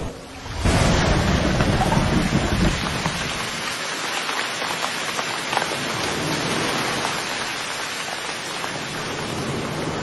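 Steady rain falling, with a low rumble of thunder about half a second in that fades after a couple of seconds, leaving an even hiss of rain.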